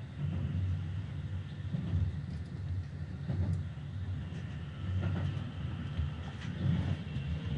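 Keikyu 1000 series electric train running along the line, heard from just behind the driver's cab: a steady low rumble of wheels on rails, with a few short knocks.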